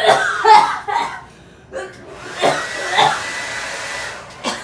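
Voices and laughter in the first second. Then a hand-held hair dryer, packed with baby powder, is switched on and runs with a steady hiss and a thin high whine for about two seconds before it is switched off.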